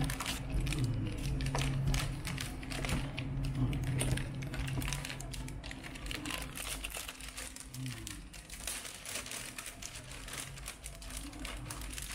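Plastic packaging crinkling and rustling in irregular crackles as hands pull a laptop's plastic sleeve and foam packing blocks apart.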